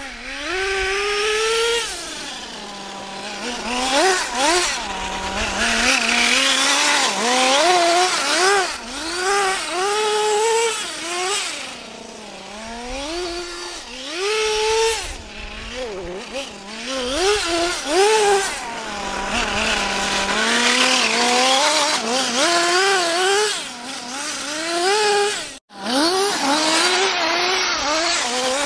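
Kyosho DRT radio-controlled truck's GXR18 nitro two-stroke engine, high-pitched, revving up and falling back again and again as the truck is throttled through slides on slush and ice.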